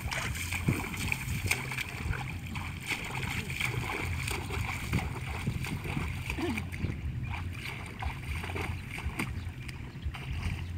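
Footsteps splashing and squelching irregularly through shallow water and mud, over a steady low rumble.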